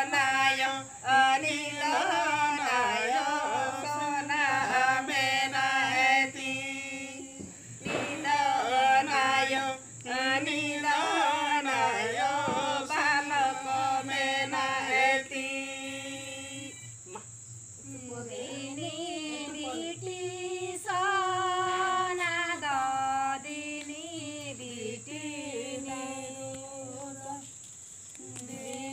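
A group of Santal singers, mostly women, singing a Sohrai song together unaccompanied, in long sung phrases with short breaks between verses.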